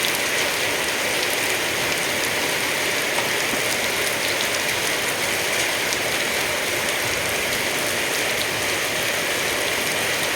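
Heavy rain falling with hail: a steady, even hiss of rain with scattered sharp ticks of hailstones striking.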